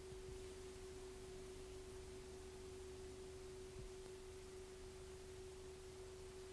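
Faint steady pure tone held at one pitch, over a low hiss, in a quiet stretch of an old VHS tape recording.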